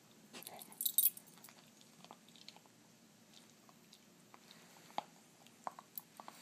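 Faint handling noise of fingers on a tablet and its case: a crackly rustle about half a second in, then a few scattered light taps and clicks near the end.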